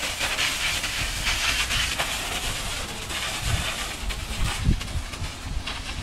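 High-pressure washer jet hissing as it blasts a dump truck's wheels and underbody, with water splashing and running off. From about halfway through, uneven low rumbling knocks join in.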